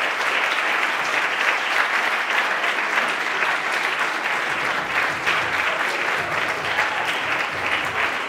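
Wedding guests applauding steadily, a dense patter of many hands clapping.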